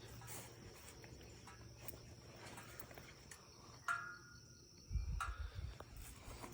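Faint steady chirping of crickets in the background. A short creak comes about four seconds in, and a brief low rumble about five seconds in.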